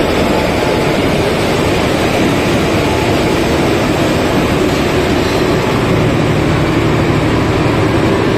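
Express passenger train pulling out past a platform: the coaches roll by with a loud, steady noise of wheels on rails.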